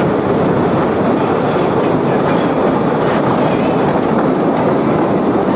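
Open-car cave tourist train running on its rails through a narrow rock tunnel: a loud, steady rumble and clatter of the wheels and cars, heard from on board.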